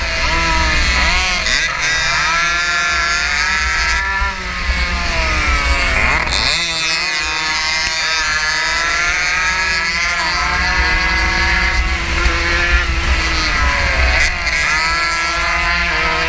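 A 115cc racing motorcycle's engine at full race pace, revving in long rising climbs, with a sharp drop about six seconds in before it climbs again. Steady wind rumble on the microphone underneath.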